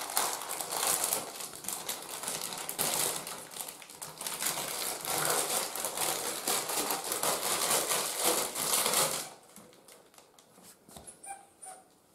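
Clear plastic packaging crinkling and rustling in the hands as a dog toy is unwrapped, stopping suddenly about nine seconds in. A couple of faint short squeaks follow near the end.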